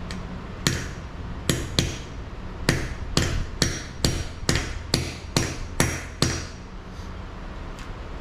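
Hammer striking steel about a dozen times, mostly in an even beat of about two blows a second, each hit ringing briefly, with two lighter taps near the end. A new U-joint's bearing cap is being driven into the drive shaft yoke.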